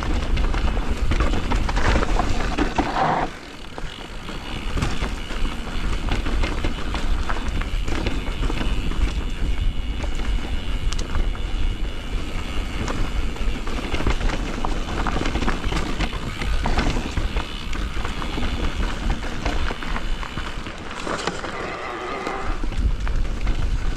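E-mountain bike descending a dry, dusty trail: tyres rolling and crunching over dirt and stones and the bike clattering over bumps, with heavy wind rumble on the microphone.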